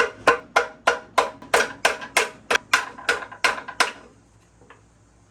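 A hammer tapping repeatedly on a metal engine part, about three to four ringing taps a second, knocking a stuck component loose; the tapping stops about four seconds in, followed by a few faint clicks.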